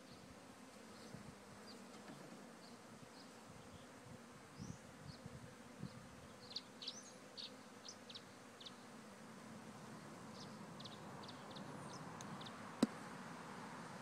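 Honeybee swarm humming as it is moved from a straw skep into a hive, the hum growing a little stronger in the second half. Short high chirps come and go, and a single sharp knock sounds near the end.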